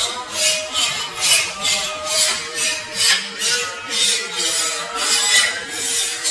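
A large knife sawing back and forth through a seer fish, cutting it into steaks: a rasping stroke repeated about twice a second.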